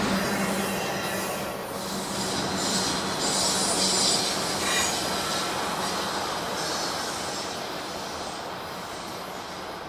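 Railroad cars rolling past with a steady rumble and wheels squealing on the rails, the squeal loudest a few seconds in, the sound slowly fading toward the end.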